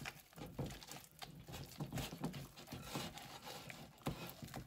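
Hands squeezing and turning a sticky cheese-and-egg dough in a glass bowl: faint, irregular wet squelches and light taps.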